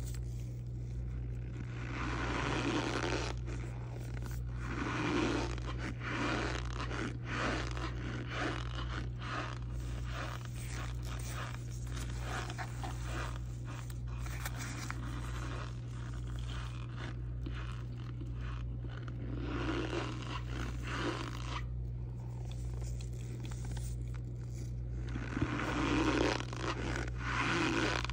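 A plastic spoon scraping and crunching through dry, crumbly clumped powder in a clear plastic tub, in irregular strokes that come and go, over a steady low hum.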